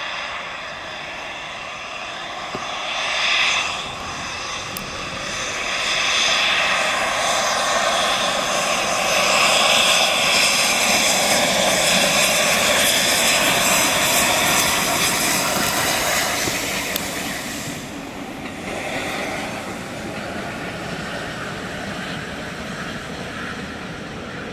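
Somerset & Dorset 7F 2-8-0 steam locomotive 53808 working a passenger train past, its exhaust and running noise building to loudest midway and falling away as it passes by.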